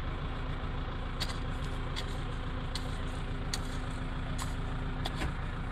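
A backhoe loader's diesel engine running steadily with an even hum, and a few short sharp clicks scattered through it.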